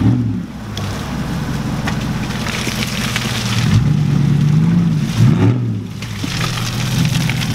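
Lifted Dodge Ram pickup's engine revving up and falling back several times as the truck, stuck in deep mud, spins its tires in the ruts.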